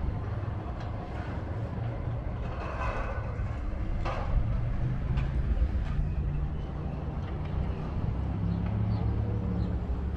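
Wind on the camera microphone, a steady low rumble, with faint scattered outdoor sounds over it.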